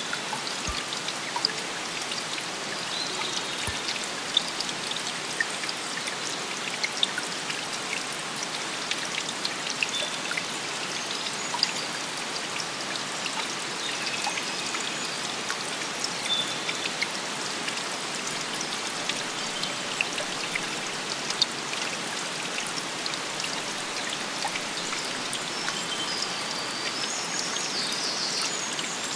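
Forest field recording of water: a steady patter of dripping drops over flowing, trickling water. A few high chirping calls come in near the end.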